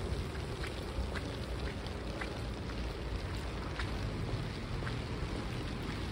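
Steady rain falling on wet paving, with scattered sharp drop ticks, over a heavy low rumble of wind on the microphone.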